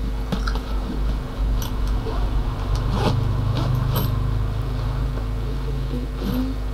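Low, engine-like rumble that swells through the middle and eases off near the end, under a steady hum, with a few faint clicks and knocks.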